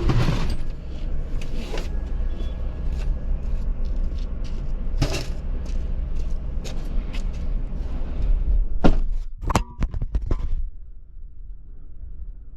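Scrap computers and other metal scrap being thrown onto a scrap pile: a run of clattering crashes and knocks over a low rumble, thickest just before the crashing stops about ten seconds in.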